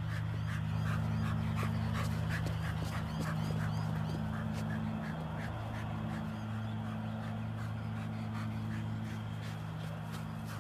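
A dog panting quickly, about three breaths a second, over a steady low hum.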